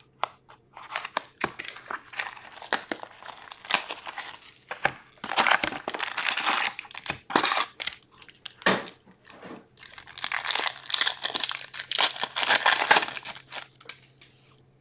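Foil hockey card packs crinkling as they are taken from a cardboard hobby box and one is torn open by hand, in a run of irregular rustling bursts, heaviest about five to seven seconds in and again from about ten to thirteen seconds.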